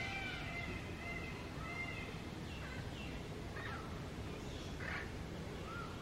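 Rose-ringed (Indian ringneck) parakeets calling: repeated short, arching squawks, several close together in the first two seconds and then more scattered, over a steady low background rumble.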